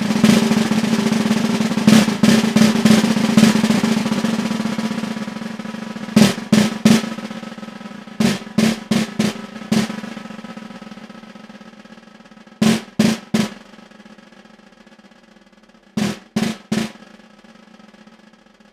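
Concert snare drum played with wooden sticks. A loud, accented roll dies away over the first few seconds. Then come short groups of three to five sharp strokes, about three a second, with pauses between them in which the drum rings on and fades, growing quieter overall.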